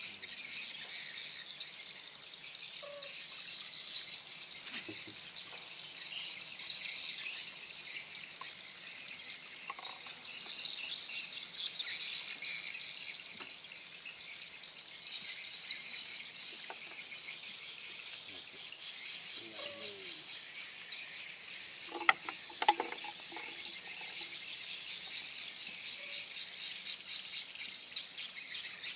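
Insects chirring steadily in a high-pitched band. Two sharp clicks come less than a second apart, about three quarters of the way through.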